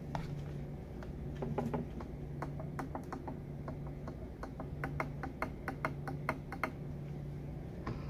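Boosted Board Stealth electric drive motor turned by hand, giving a string of sharp clicks, several a second. This is the nasty clicking traced to the motors themselves, not the bearings.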